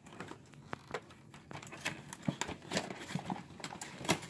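Cardboard toy packaging being handled and pulled apart: irregular taps, scrapes and crinkles of card.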